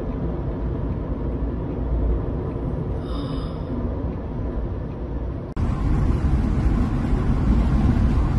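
Steady low outdoor rumble, then, after a sudden cut about five and a half seconds in, louder steady road and engine noise heard from inside a moving car.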